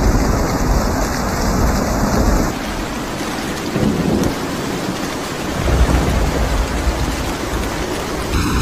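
Steady heavy rain with low rolling thunder, the rumble strongest at the start and swelling again a little past the middle.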